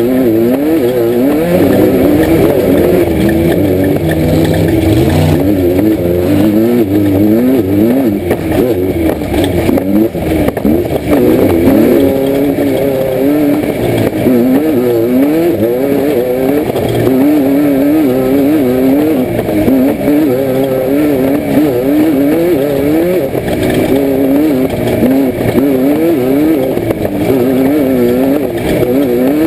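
Class 5-1600 Baja Bug's air-cooled VW engine at race pace, heard from inside the car, revving up and falling back again and again in quick rises and falls of pitch, loud throughout.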